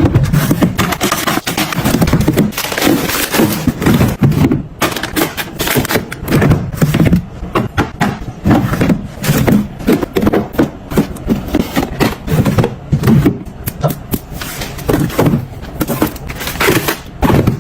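A busy run of knocks, clicks and scrapes as household items and containers are handled and set down during kitchen restocking.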